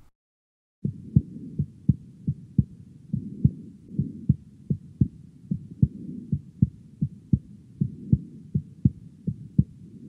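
A heartbeat recorded through a Thinklabs digital stethoscope, starting about a second in: a steady run of dull, low thumps in a lub-de-dub rhythm. S1 and S2 are each followed closely by an extra third heart sound (S3), the sign of rapid ventricular filling.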